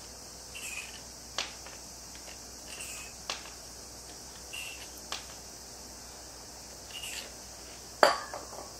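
Steady high-pitched insect drone. A few sharp clicks fall about every two seconds, with short higher chirps between them. The loudest click comes near the end.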